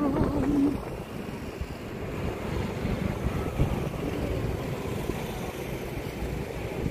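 Wind buffeting the phone's microphone in a rough, low, fluttering rumble.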